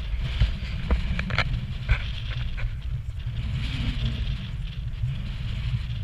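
Wind buffeting a small action camera's microphone in a low, rough rumble, with footsteps crunching on stony ground about twice a second during the first two seconds.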